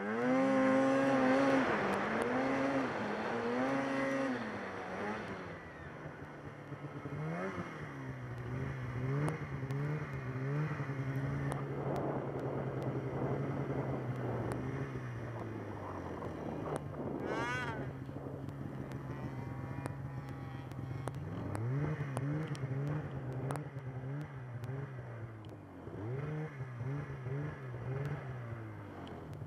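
Snowmobile engine running and revving, its pitch rising and falling again and again as the throttle is opened and eased off. A brief, higher whine rises and falls a little past halfway.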